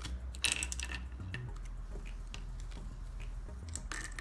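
Scattered light plastic clicks and taps from speedcubes being handled, the sharpest about half a second in, over a low steady hum.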